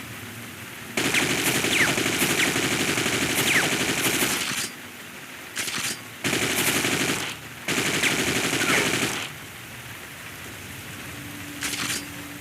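AK-47 automatic rifle fire in five bursts: a long burst of about three and a half seconds, a very short burst, two bursts of a second or so each, and a short burst near the end.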